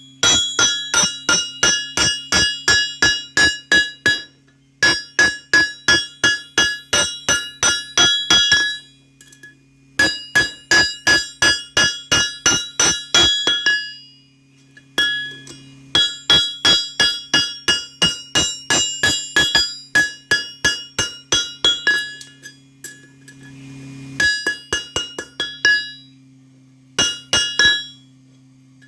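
Hand hammer blows ringing on steel, in runs of about three to four strikes a second with short pauses between the runs. A steady low hum runs underneath.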